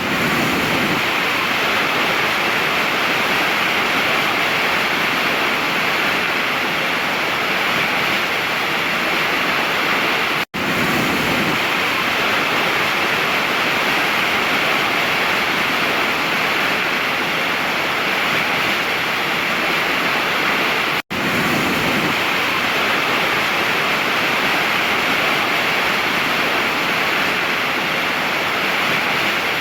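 Waterfall rushing in a steady, even roar of falling water, broken twice by a split-second drop to silence, about ten and twenty-one seconds in.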